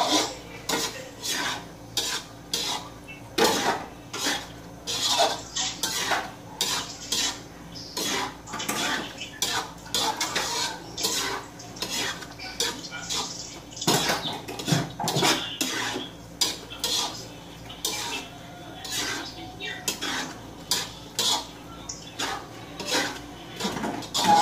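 Spatula scraping and knocking against a wok while stirring food in it, in repeated strokes about two a second.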